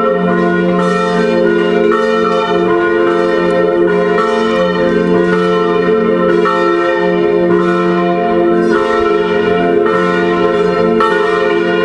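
Five swinging church bells, a peal tuned to F3, rung together a distesa (full swing, the plenum). The strikes come about once a second, unevenly, so the bells' tones overlap in a continuous ringing wash.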